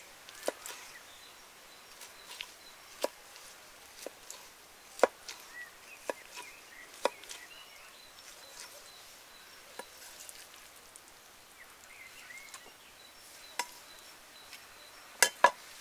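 Large kitchen knife cutting raw sheep offal on a wooden cutting board: sharp knocks of the blade on the board at irregular intervals, often about a second apart at first, then sparser. Near the end come two loud knocks close together.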